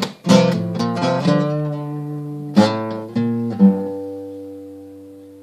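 Acoustic guitar playing the last few strummed chords and picked notes of a song, then a final chord ringing out and slowly fading.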